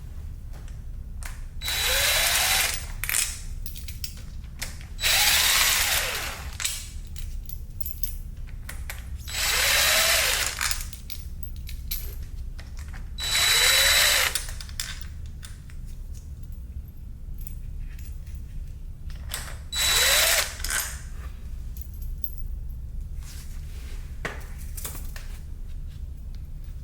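Power drill run in five short bursts of about a second each, its motor whine rising and falling with each one, backing bolts out. Faint clicks of parts being handled between the bursts.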